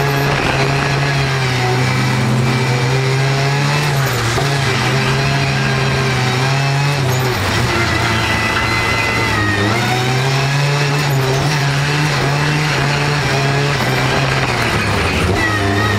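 Race car's engine heard from inside the cabin during hard track driving, its note steady under load, then dropping and climbing back several times as the driver lifts off and accelerates through the turns.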